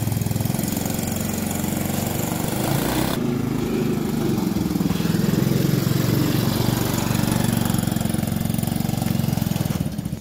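Small 150cc mini jeep engine running close by with a steady, fast, low chugging pulse, a little louder from about three seconds in; it drops off near the end as the jeep moves away.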